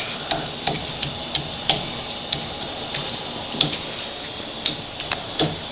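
Pot of chili (ground beef and spices) bubbling on the stove: a steady hiss with scattered sharp pops at irregular intervals.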